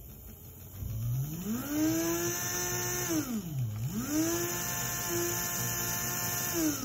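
Freshly rebuilt Mantua/Tyco Mu2 model-train motor running on transformer power, a whine with overtones. It speeds up about a second in and holds, slows sharply around three and a half seconds, then speeds up again and holds, still working its way in after reassembly.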